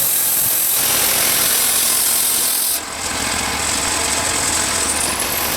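Wood-Mizer portable band sawmill running, its engine going steadily under a loud high hiss that cuts off suddenly about three seconds in. Near the end a high whine rises in pitch.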